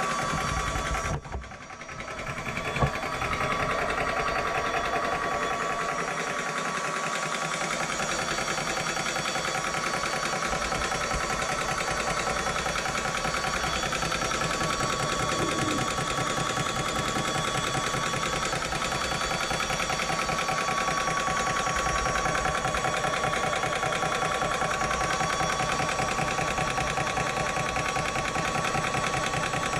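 Hatsan portable compressor running steadily as it fills a PCP air rifle, a continuous mechanical hum with a steady whine. It drops away briefly a second or so in, with a click just after.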